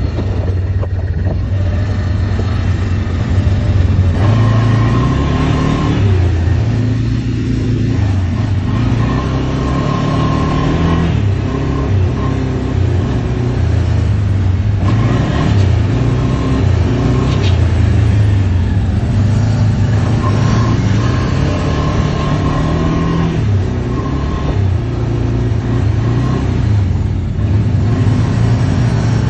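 ATV engines running while riding, the nearest one's pitch stepping up and down with the throttle, along with an on-and-off higher whine.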